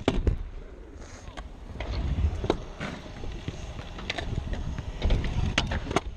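Stunt scooter wheels rolling on skatepark concrete with a steady rumble, broken by several sharp clacks and knocks of the deck and wheels hitting the ground.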